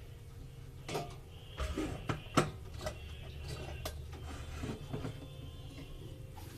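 Kitchen clatter: a string of knocks and clinks of metal cookware and utensils, the loudest about two and a half seconds in, over a steady low hum.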